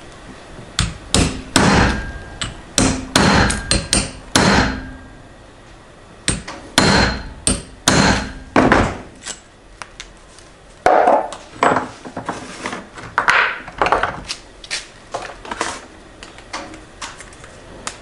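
Hammer blows on a metal punch held against a fishing feeder: sharp knocks with a short metallic ring, coming in three bursts, then lighter taps near the end.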